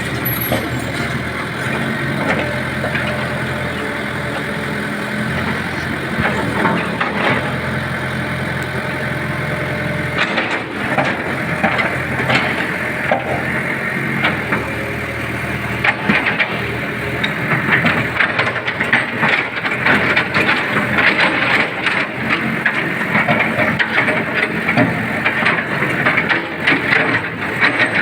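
Caterpillar 313B CR excavator's diesel engine running steadily, with frequent knocks and rattles from about ten seconds in and a busier, higher-pitched working sound in the second half.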